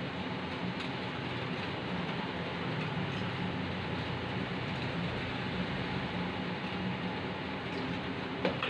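Steady roar of a gas wok burner running at full flame, with a single sharp knock near the end.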